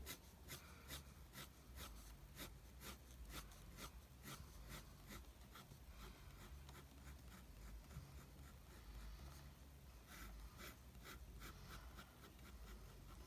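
Faint pencil strokes on drawing paper: a run of short scratching strokes about two a second, thinning out midway and picking up again near the end.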